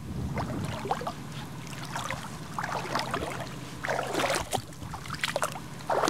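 Shallow sea water splashing and gurgling close to the microphone, in irregular bursts.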